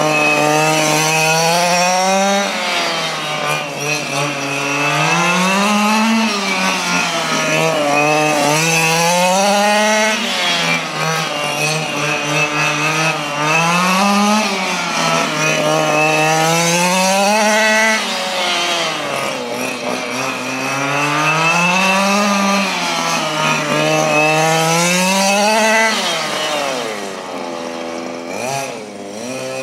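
Small two-stroke gas engine of a quarter-scale radio-controlled oval race car running laps. The engine note climbs and falls back in a repeating cycle about every four seconds as the car accelerates down the straights and lifts for the turns. It drops lower and fainter near the end.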